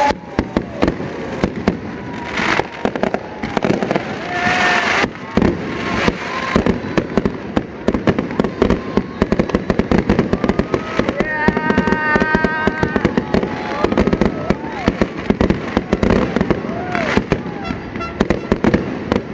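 Fireworks display: a dense, continuous run of bangs and crackling bursts. Near the middle, a held pitched tone with overtones sounds for about a second and a half.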